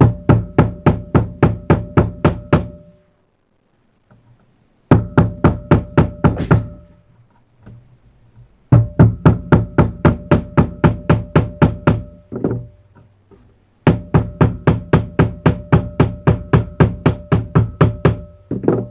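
A hammer pounding small pieces of lead flat on a hard surface, in four runs of rapid blows about five a second, with a slight ring carrying through each run.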